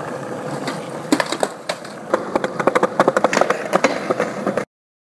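Skateboard wheels rolling over pavement, with a rapid run of sharp clacks about two to three seconds in; the sound cuts off suddenly near the end.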